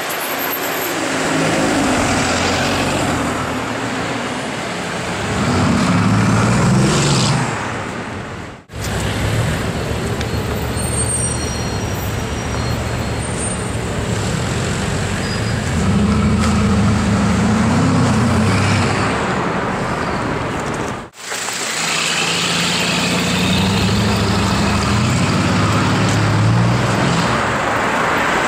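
Bugatti Veyron's quad-turbo W16 engine accelerating hard through a sports exhaust amid street traffic: three swells of engine note rising in pitch, with the sound cutting off abruptly twice, about a third of the way in and about three quarters of the way in.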